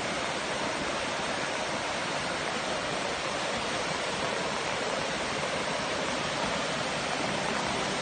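Shallow stream cascading over rock slabs and boulders in a steady, unbroken rush of water.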